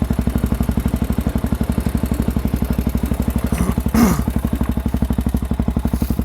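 ATV engine idling with an even, fast pulse. A brief sharp sound, falling in pitch, cuts in about four seconds in.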